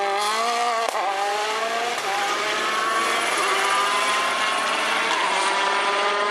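Rally car engine pulling hard, its pitch climbing. About a second in there is a quick gear change, and then the pitch climbs slowly again.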